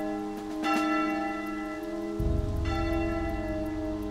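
A church bell tolling slowly, struck twice about two seconds apart, each stroke ringing on with a long hum. A deep low rumble comes in underneath about halfway through.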